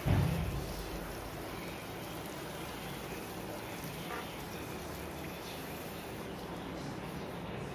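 Steady sizzling hiss of a pan of beef tripe curry cooking on the stove, with a dull low thump at the very start.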